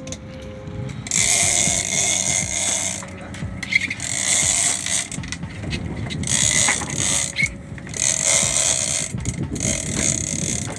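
Overhead jigging reel being cranked in spells of a second or two with short pauses, its gears whirring and clicking as a hooked fish is wound up from deep water.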